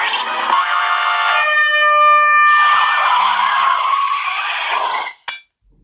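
Air horn blasting a loud, harsh blare, with a steady chord of tones in the middle that gives way to a hissing rush, cutting off suddenly near the end.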